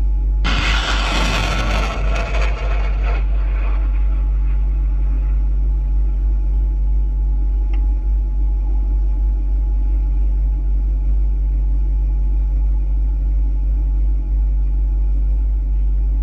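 HIMARS rocket launch: a loud rushing roar from the rocket motor starts about half a second in, is strongest for the next two to three seconds, and fades out by about five seconds in. Under it, a vehicle engine idles with a steady low drone.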